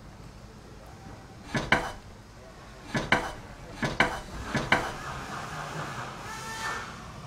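Hard wooden clacks and knocks, four of them about a second apart, each a quick double strike, as the rails of a wooden frame are knocked together; then a steadier rasping noise near the end.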